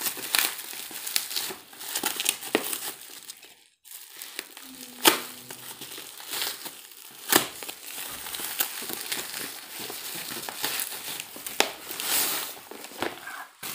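Plastic shipping bag and bubble wrap crinkling and rustling as they are pulled and torn open by hand, with a few sharp cracks along the way.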